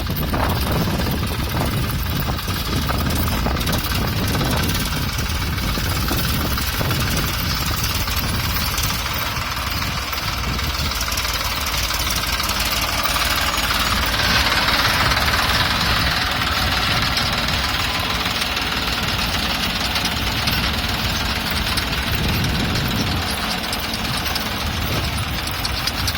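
Engine of a field weeding machine running steadily, a continuous mechanical noise that grows a little brighter partway through.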